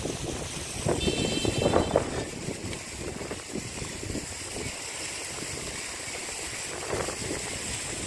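Wind buffeting the microphone, a rumbling rush with gusts loudest about one to two seconds in. A brief high tone sounds about a second in.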